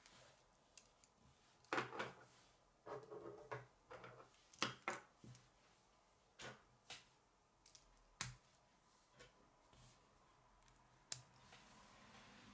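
Plastic K'nex rods and connectors being handled and snapped together: irregular sharp clicks and short rattles, thickest in the first five seconds, then a few single clicks.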